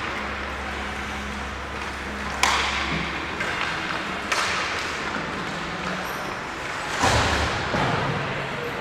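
Ice hockey play in an indoor rink: three sharp hits of stick and puck, about two seconds apart, each ringing on in the arena, over a steady hiss. A low hum runs under the first three seconds.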